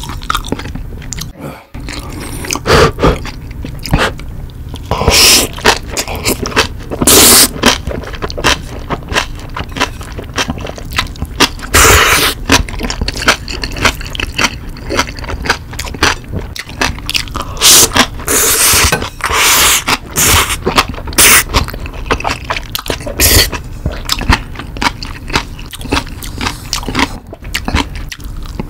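Close-miked eating sounds: noodles and green onion kimchi being slurped and chewed, with many short wet mouth clicks and crunches and several longer, louder slurps spread through.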